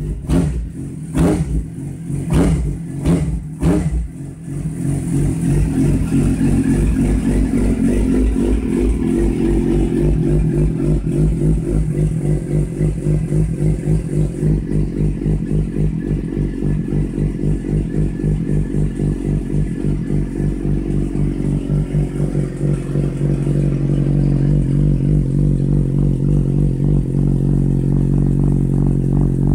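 Suzuki GSX-R600 K9's inline-four engine being started: a few sharp clattering strokes for about four seconds, then it catches and idles steadily through its Yoshimura slip-on exhaust.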